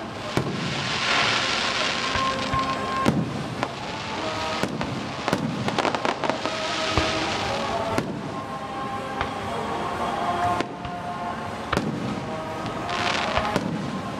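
Aerial fireworks bursting overhead: a string of sharp bangs, with longer hissing, crackling spells about a second in, around six seconds in and near the end.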